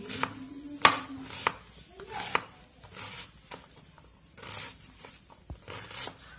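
Kitchen knife chopping a red onion finely on a plastic cutting board: irregular sharp knocks of the blade against the board, the loudest about a second in, with softer slicing strokes between.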